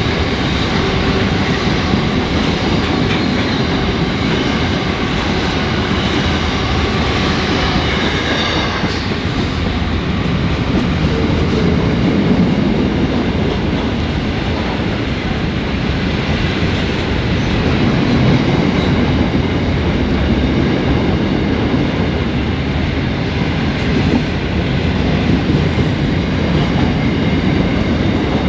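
Freight train of empty flat wagons rolling past, a steady loud rumble and rattle of wheels and wagons that swells and eases every few seconds. A high steady whine sits over it for the first nine seconds or so, then stops.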